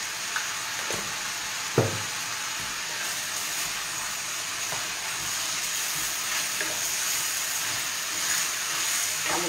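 Pork spare ribs and sausages sizzling as they brown in a steel pot, being turned over, with a sharp knock about two seconds in.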